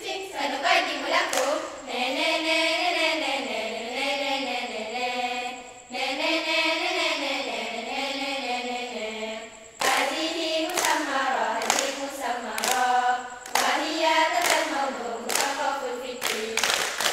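Girls' voices chanting a melodic musammarah piece in unison, in long phrases with a gliding melody. Sharp hand claps join in, most densely in the second half.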